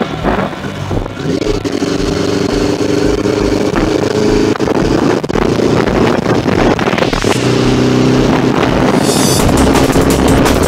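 Yamaha R6 sport bike's inline-four engine running at road speed, with wind rush. Electronic music with a steady thumping beat plays over it.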